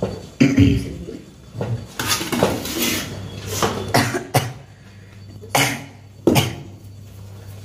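Several coughs, set off by chilli fumes from the hot spiced khichu mixture, over the scrape and clink of a ladle stirring rice-flour dough in a steel pot.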